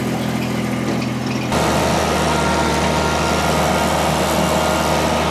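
Mini skid steer engine running steadily. About a second and a half in, the sound switches abruptly to a louder machine, with a steady engine note and higher whining tones over it.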